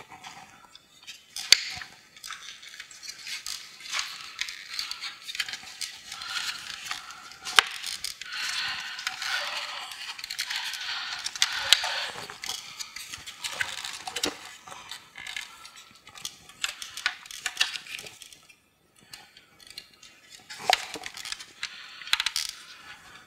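Plastic front grille of a 2015 Acura TLX being pressed and worked into the plastic bumper cover by hand: sharp plastic clicks and snaps scattered throughout, with a stretch of scraping and rubbing about halfway through.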